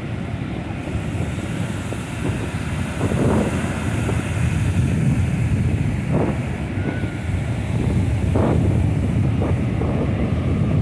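Ocean surf breaking and washing up a sandy beach, heavily overlaid by wind buffeting the microphone in a low rumble with several stronger gusts.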